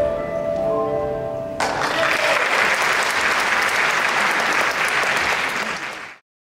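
Performance music fades on a held chord, then an audience breaks into steady applause about a second and a half in, which cuts off abruptly near the end.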